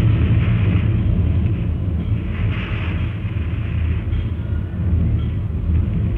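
Steady low rumble with hiss, the background noise of a 1930s film soundtrack, with no distinct pouring or splashing sound standing out from it.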